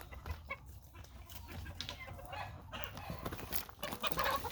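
Chickens clucking, with a few faint calls among scattered clicks and rustles; the clearest call comes about three seconds in.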